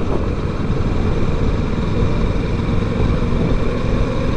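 Kawasaki Versys 650 parallel-twin engine running at a steady highway cruise, mixed with steady wind rush over the microphone.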